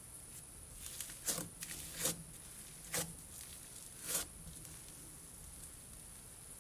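Slime being worked by hand, giving four short, soft squishy pops about a second apart.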